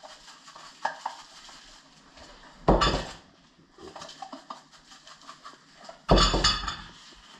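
Spice shaker shaken over meat: faint rattling of the dry rub inside, with two loud, brief rattling shakes about three and six seconds in.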